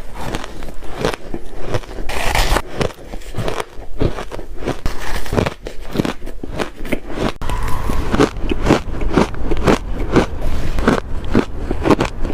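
Close-up of ice cubes being bitten and crunched between the teeth, a rapid series of sharp crunches and crackles, a few a second, with a squeaky edge to the ice.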